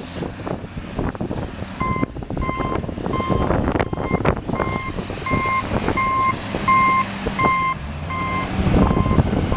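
Reversing alarm of a snow-clearing tractor beeping steadily, about one and a half beeps a second, starting about two seconds in, over the tractor's running engine, whose pitch dips briefly near the end.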